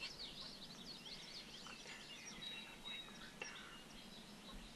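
Songbirds chirping and singing faintly, many short overlapping calls, with one brief held whistle note near the middle and a single sharp click a little after it.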